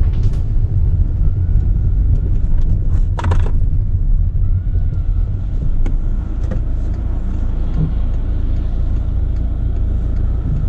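VW Touran heard from inside the cabin while driving and slowing to a stop: a steady low rumble of engine and road noise. A brief rustle comes about three seconds in.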